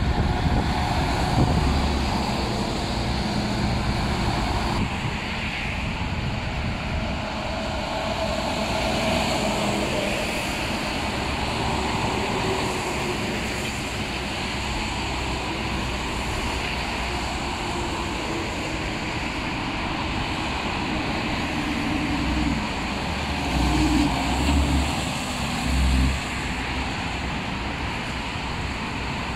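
Steady road traffic: tractor-trailers, a box truck and cars driving past on a wet street, engines running and tyres hissing on the wet pavement. A few stronger low rumbles come about three-quarters of the way through.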